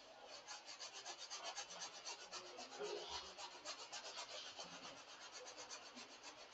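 Paintbrush scrubbing paint onto a canvas in quick back-and-forth strokes, about eight a second, a faint rubbing scratch.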